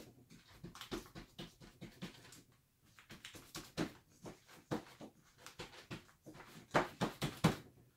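Hands pressing and patting dough into a metal springform pan, soft irregular taps and rustles, a few louder ones about four seconds in and near the end.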